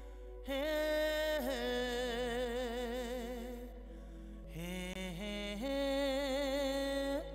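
A song: a solo voice holding long notes with wide vibrato, sliding up into each new note. A faint steady low hum runs underneath.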